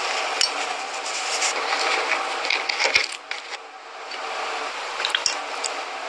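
Sand sprinkled from fingers and seashells set down on a china plate: a steady gritty hiss with several sharp clicks of shell on china, the loudest about three seconds in.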